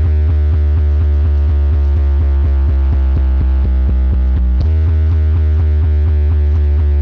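Electronic DJ music with a heavy, sustained bass under fast repeating notes, about six to seven a second; the pattern shifts about four and a half seconds in.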